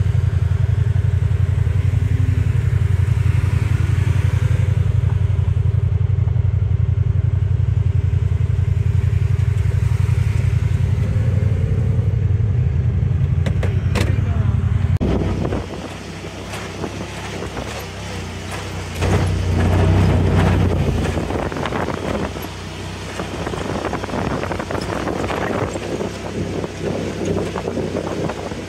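Honda Pioneer 1000-5 side-by-side running steadily with a strong low engine drone. About halfway through the drone drops back and rattling and clatter from the machine and its tyres on the gravel track take over, with the engine briefly swelling again a few seconds later.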